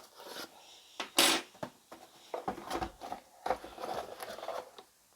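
A small product box being opened and its packaging handled: a loud scraping slide about a second in, then rustling and light knocks as the contents are lifted out.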